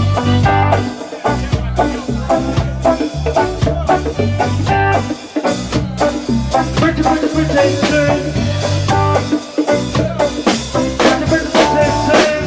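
Live reggae band playing an instrumental stretch, with bass guitar, drum kit and guitar.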